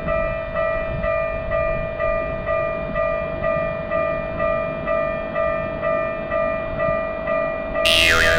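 Japanese railroad level-crossing warning bell ringing steadily, about two strikes a second, over a low rumble. Near the end a sudden loud sweeping sound cuts in over it.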